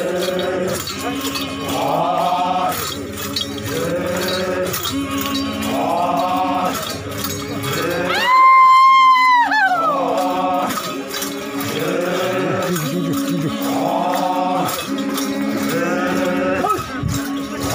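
Group of Naga men chanting in repeated call phrases over a steady low drone while dancing, with the brass bells worn at their waists clinking in time. About eight seconds in, a long high cry holds one pitch for over a second, then slides down.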